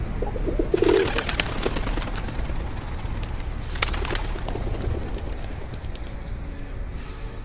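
Pigeons cooing, then a flock of pigeons taking off in a rapid flurry of wing flaps about a second in, with a second short burst of flapping near four seconds.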